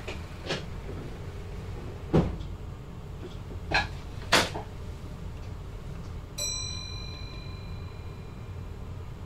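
Inside a VIRM train's driver's cab: several sharp clicks and knocks, then, about six seconds in, one chime-like electronic tone that starts suddenly and fades over about two seconds, over a steady low hum.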